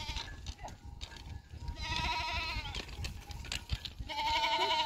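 Grazing flock of goats and sheep bleating: two long, wavering bleats, one about two seconds in and another starting near the end.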